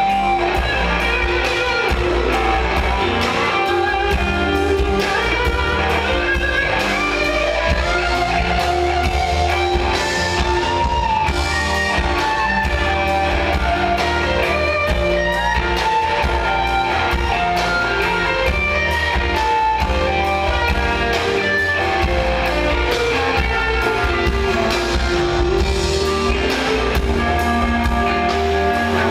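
Live rock band playing a slow blues, led by an electric guitar solo on a sunburst Stratocaster-style guitar, with sustained, bent notes over bass and drums.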